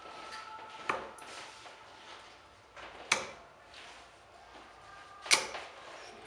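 Three darts thrown one after another, each landing in a bristle dartboard with a short, sharp thud, about two seconds apart. The last two hits are the loudest.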